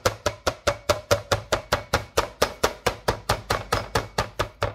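Metal meat mallet pounding chicken breast through plastic wrap on a cutting board: rapid, even strikes, about five a second.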